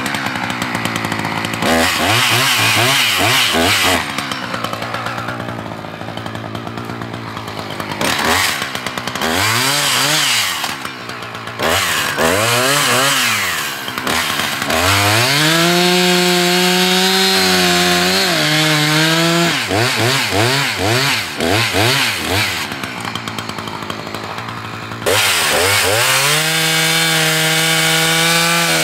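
Husqvarna 359 59 cc two-stroke chainsaw cutting through a log: the engine revs up and down in short throttle blips, then holds at full throttle for several seconds at a time while the chain cuts, twice, dropping back between cuts.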